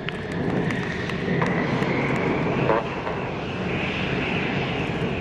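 Aircraft engine running: a steady rushing rumble with a high whine over it that rises a little, growing louder about a second in.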